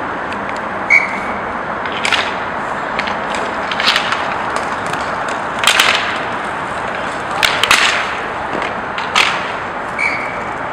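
Inline roller hockey play: a steady hiss of skate wheels and rink noise, broken by several sharp clacks of sticks and puck hitting each other and the floor or boards. Two short high squeaks come about a second in and near the end.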